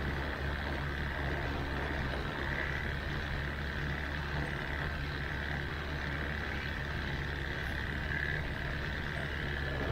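Engine idling steadily, with a steady high-pitched drone above it.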